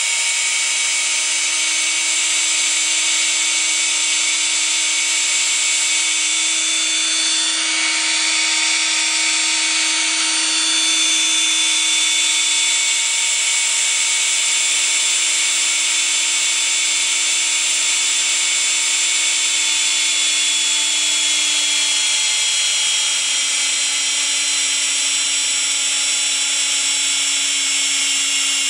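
Homemade electric ducted fan, a brushless motor spinning two fan rotors inside a duct with stator vanes, running steadily at high speed: a loud, high-pitched whine over a rush of air. Its pitch sags slightly about two-thirds of the way through.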